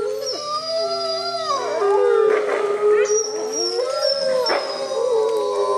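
A wolf pack's chorus howl: several wolves holding long, overlapping howls at different pitches, some gliding up and down, with a couple of short, harsher calls mixed in about two and a half and four and a half seconds in.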